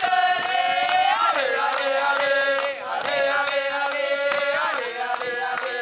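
A group of rugby supporters, men and women together, singing a chant with long held notes and clapping in time.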